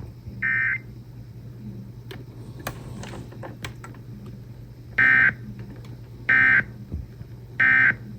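Emergency Alert System SAME digital data bursts played over FM radio: one short buzzy burst about half a second in, then three short identical bursts about 1.3 s apart near the end. This is the end-of-message code that closes the monthly test alert. A low steady hum and faint scattered clicks from the radio sit underneath.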